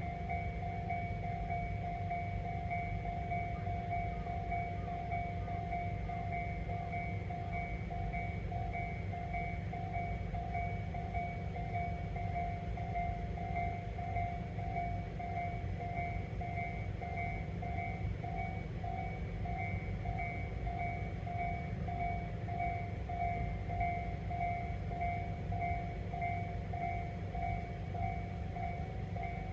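Railway level crossing warning bell ringing, a steady repeating ding-ding at an even pace, over a steady low rumble.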